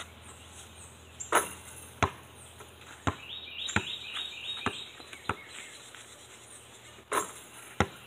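A basketball being dribbled, bouncing with sharp smacks about every second, with two rougher knocks, one just over a second in and one about seven seconds in. Birds chirp throughout, with a quick run of chirps in the middle.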